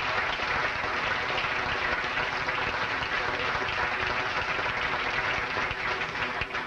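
Audience applauding: steady, dense clapping that cuts off abruptly near the end.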